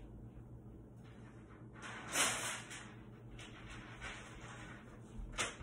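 Handling noise from someone moving about off to the side: a short, loud scraping rustle about two seconds in and a sharp click near the end, over a low steady hum.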